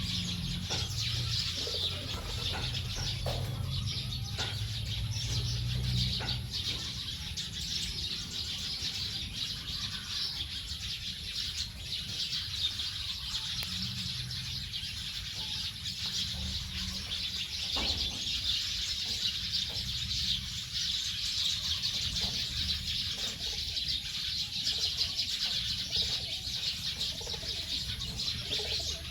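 A large flock of small birds chirping together at their roost as they settle for the night, a dense, continuous, overlapping chatter, with a low rumble underneath.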